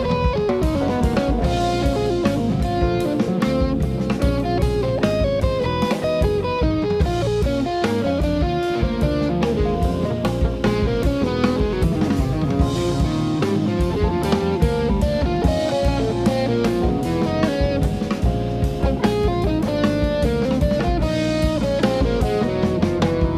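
Jazz band playing an instrumental passage, led by a hollow-body electric guitar playing a line of quickly changing notes over electric bass and drum kit.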